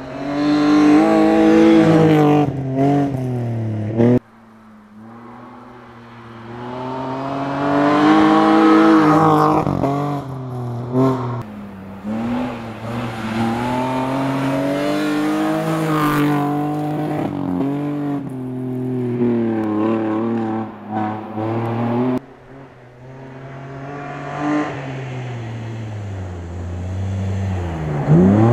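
BMW Compact rally car's engine revving hard through the gears, its pitch climbing and dropping back at each shift. The sound jumps abruptly twice, about 4 s and 22 s in, fading back up each time as the car closes in.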